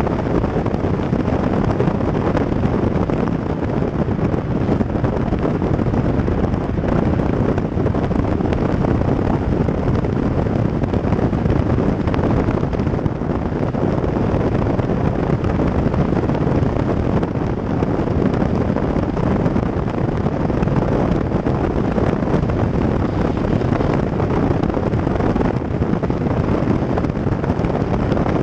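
Steady wind rush on the microphone of a camera mounted on the outside of a car at road speed, mixed with tyre noise on asphalt.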